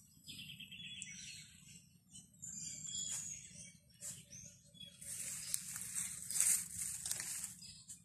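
Wild birds chirping, with a quick trill about half a second in and high whistled notes around three seconds. From about five seconds a loud dry rustle of leaves and branches lasts roughly two and a half seconds.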